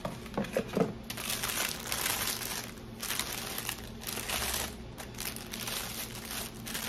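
Packaging crinkling and rustling in bursts as a flat iron's pouch and its wrapping are handled.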